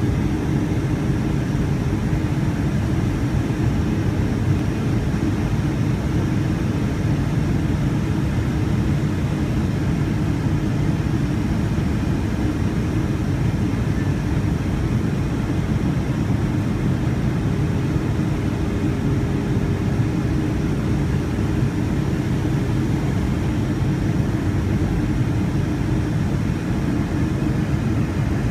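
Steady low drone inside the cabin of a Boeing 757-200 in flight: jet engine and airflow noise heard from a window seat beside the wing, with a faint steady hum riding on the rumble.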